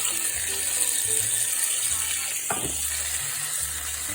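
Leftover chicken sizzling and crackling in a hot frying pan, with a single sharp knock about two and a half seconds in.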